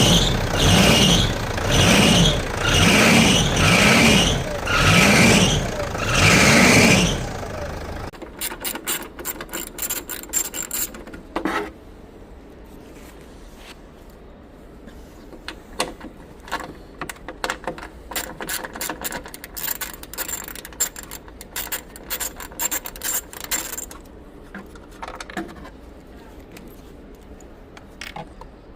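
Mitsubishi Pajero's alternator belt squealing loudly about six times, once a second, each squeal rising and falling in pitch as the engine is revved: a slipping belt. After about seven seconds the squealing stops, leaving a quieter run of scattered clicks and ticks.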